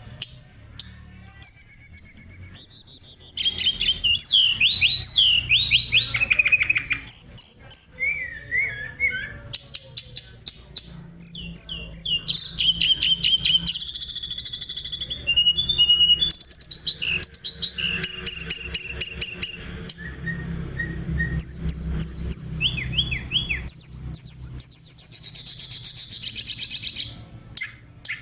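Oriental magpie-robin singing a long, varied song of clear whistles, fast trills and rattling chatter, changing phrase every second or two with hardly a pause.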